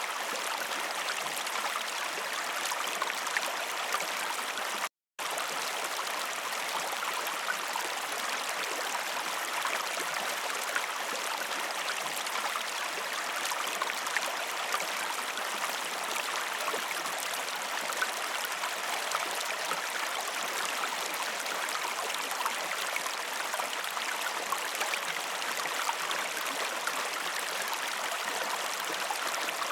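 Waterfall: a steady rush and splash of falling water, with no low rumble beneath it. The sound cuts out completely for a split second about five seconds in, then resumes unchanged.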